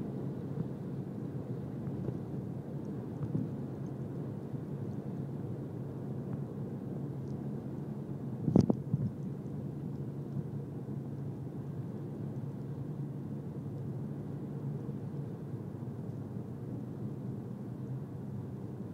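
Steady low rumble of a car's engine and tyres heard from inside the cabin while driving, with a faint hum. One sharp thump about halfway through.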